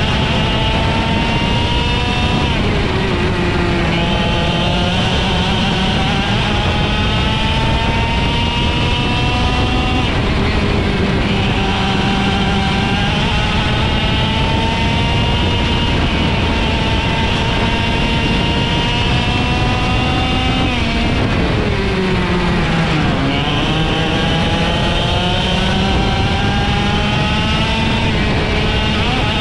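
IAME X30 125cc two-stroke kart engine racing at high revs. It climbs slowly in pitch along the straights and drops sharply several times as the driver lifts and brakes for corners, then picks back up.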